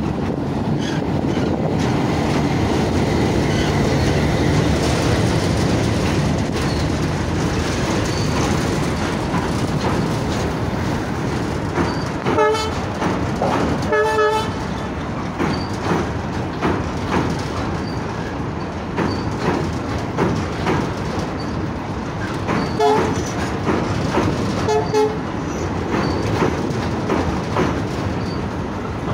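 Goods train on a steel girder bridge: the WDM3D diesel locomotive runs past close by, then the wagons roll past with their wheels clicking over the rail joints. Short pitched tones come in pairs, about twelve seconds in and again about twenty-three seconds in.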